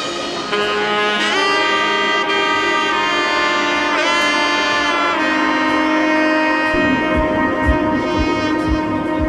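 Background music led by a saxophone-like horn playing long held notes with slides, with a steady low beat coming in about two-thirds of the way through.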